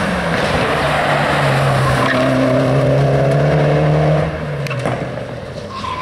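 Four-wheel-drive sprint race car engine running hard at high revs, its note held steady and rising slightly, then dropping away suddenly about four seconds in.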